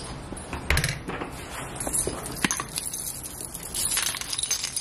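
Keys clinking and jingling in the hand, with a dull knock about a second in and a sharp click partway through; the jingling is busiest near the end.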